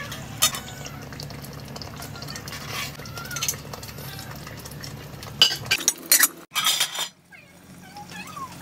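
Metal slotted spoon stirring a simmering tomato stew in a metal pot, clinking and scraping against the pot. The clinks come in a quick cluster about five and a half seconds in.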